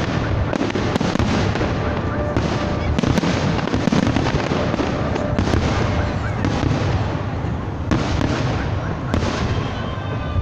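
Aerial fireworks bursting in a dense barrage, with bangs and crackling overlapping without pause.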